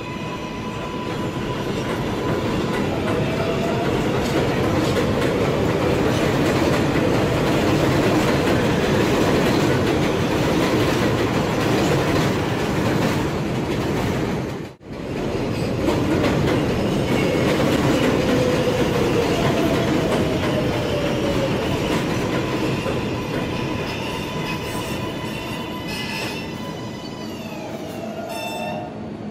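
R188 subway trains running on the rails: one pulls out past the platform, then a second runs in alongside. Under the steady rail noise, the second train's traction motors whine down in falling steps near the end as it slows almost to a stop.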